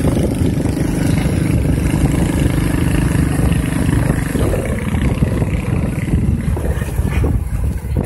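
Motorcycle engine running steadily while riding along a road, with wind rumbling on the microphone.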